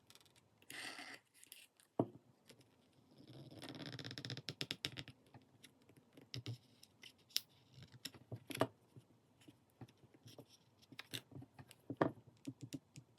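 Small prying tools scraping and clicking against a Samsung Galaxy Z Flip 4's back panel as its adhesive is worked loose: scattered sharp ticks, with a longer scrape from about three to five seconds in.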